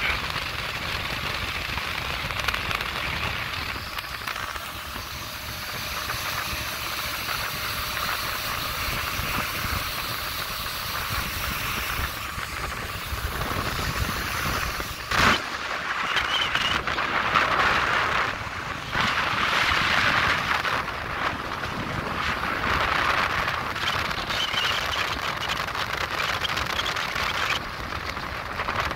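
Motorboat underway on a lake: a steady rush of water and wind noise, with one sharp knock about halfway through.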